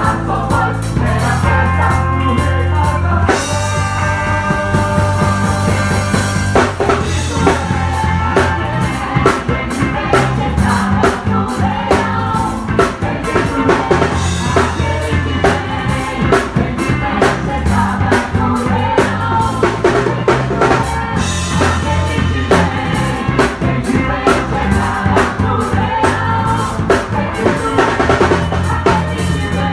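A Brazilian gospel song played on drum kit, bass and other instruments, with a steady beat of bass drum, snare and rimshots over the bass line.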